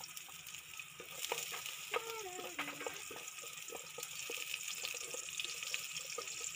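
Chopped garlic sizzling in hot oil in a metal pot, a steady crackling hiss with many small pops, while it is stirred with a wooden spatula.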